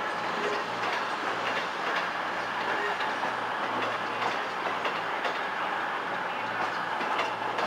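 CrossCountry Class 221 Voyager diesel-electric multiple unit arriving at a station platform, its underfloor diesel engines running with a steady low hum.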